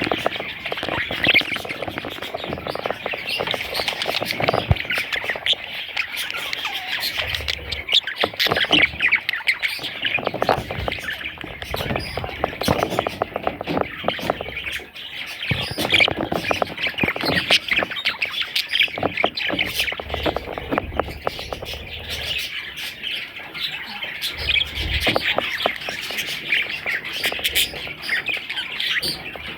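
A flock of budgerigars chattering without a break, a dense mix of many short squawks and calls.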